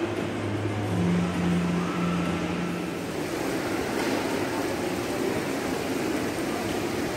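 Steady background noise of a large indoor shopping-mall atrium, with a few low held tones through the first three seconds.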